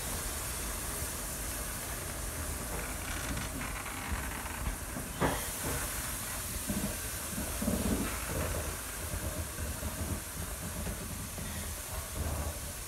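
Steam hissing steadily from the Peppercorn A1 Pacific steam locomotive 60163 Tornado, over a low rumble, with a sharp click about five seconds in.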